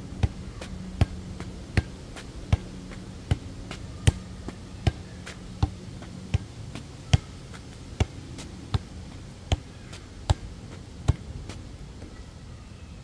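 A basketball on a cord being kicked over and over: a sharp slap about every three-quarters of a second, about fifteen in all, stopping near the end.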